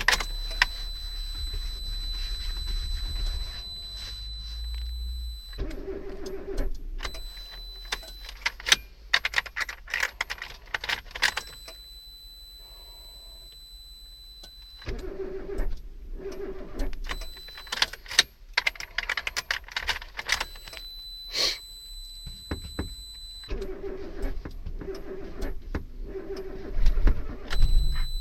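Suzuki Wagon R+ that will not start: keys jangling in the ignition as the key is turned over and over, with three short spells of starter noise and no engine catching. A steady high-pitched electronic tone comes and goes.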